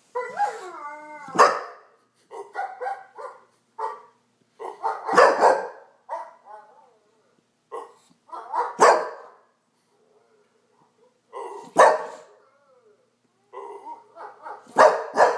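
English bulldog barking about five times, a loud sharp bark every three or four seconds, with quieter whining, yowling calls in between.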